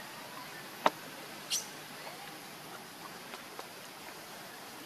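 Steady outdoor background hiss with a sharp click just under a second in and a brief high squeak about half a second later, followed by a few faint ticks.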